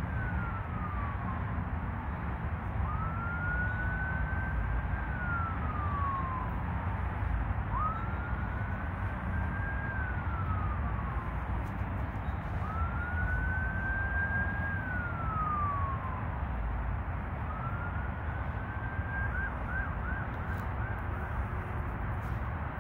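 Emergency vehicle siren wailing in slow rising-and-falling cycles about every five seconds, then switching to a quick run of short yelps near the end, over a steady low rumble.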